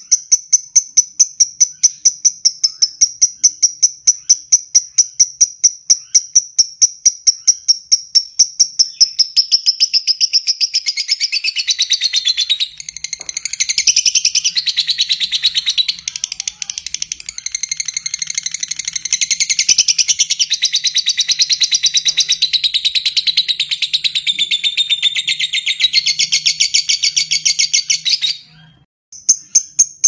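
Fischer's lovebird calling. It starts with a steady train of sharp, high ticks, about four a second (the 'ngetik' call). About nine seconds in, this swells into a long, dense, shrill chattering trill (the 'ngekek panjang'). The trill breaks off abruptly near the end, and the ticking starts again.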